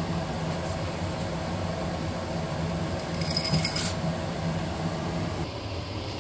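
Water boiling in a small saucepan, with a brief glassy clink a little after three seconds as beetroot macaroni are tipped into it from a drinking glass.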